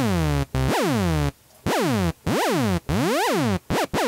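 Native Instruments Massive software synth playing about seven short blip notes, each a buzzy saw-type tone whose pitch sweeps sharply downward, driven by an envelope routed to the pitch of two oscillators tuned an octave apart. From about the middle on, each note first glides quickly up before falling, as the envelope's attack is lengthened; the last two notes are very short.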